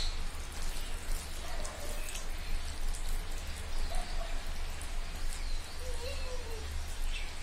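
Fingers mixing and mashing wet boiled rice in a steel bowl, making many small, sticky wet clicks and squelches, with chewing in between, over a steady low hum.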